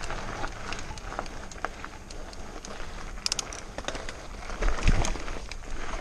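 Mountain bike rolling over a rocky trail, stones crunching under the tyres with scattered clicks and rattles. A cluster of sharp clicks comes a little after three seconds, and a heavier thump just before five seconds.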